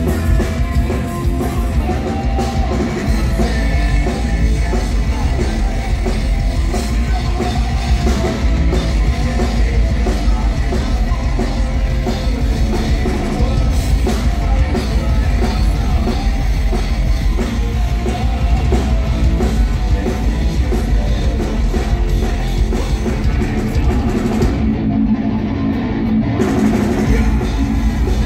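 Live heavy metal band playing, heard from the crowd: electric guitar and drum kit with singing. Near the end the cymbals drop out for about two seconds while the guitar and bass carry on.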